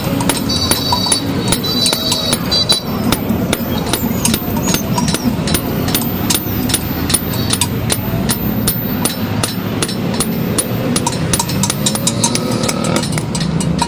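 Hammer blows on metal at an anvil, several strikes a second at uneven spacing, some ringing briefly, over a steady low rumble.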